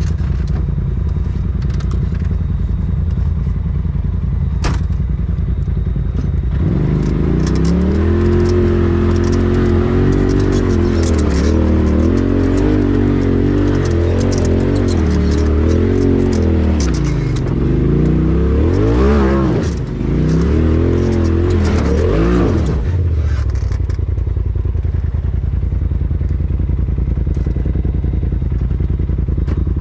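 Polaris RZR side-by-side engine heard from inside the cab, running low at first. From about six seconds in it revs up and down again and again under load on a steep dirt climb, with clatter and scraping from the rough trail and two sharp rev surges near the end. It then settles back to steady low running.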